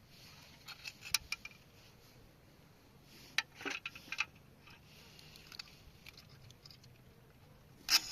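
Scattered light clicks and rattles of small objects being handled, loudest about a second in and again between three and four seconds in.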